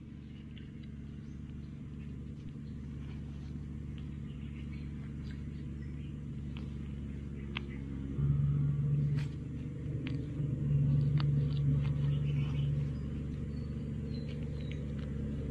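A steady low rumble that slowly grows louder and swells twice in the second half, with a few faint clicks and rustles on top.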